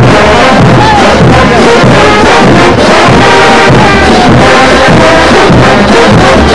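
Large brass band playing morenada music, with sousaphones carrying a bass line in regular low notes under the trumpets and trombones.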